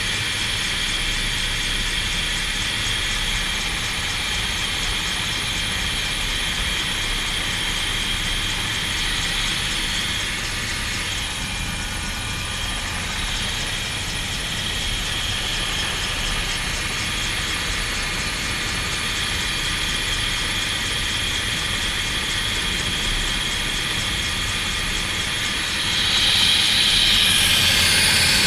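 Helicopter running steadily, a high whine over constant rotor and engine noise, which gets louder near the end.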